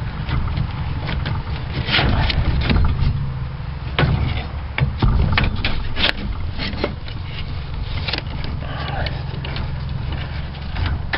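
An electric grinder running steadily while it grinds the cutting edge of a steel lawn mower blade, with short, irregular scraping bursts each time the wheel bites the metal.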